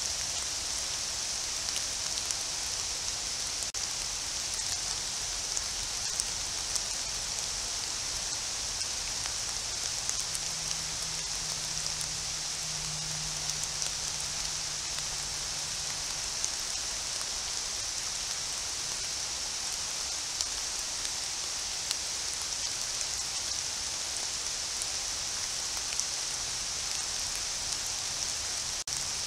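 Steady rain falling on forest foliage, an even hiss with scattered ticks of individual drops.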